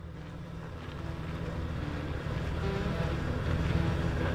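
A low vehicle rumble mixed with wind noise on the microphone, growing steadily louder.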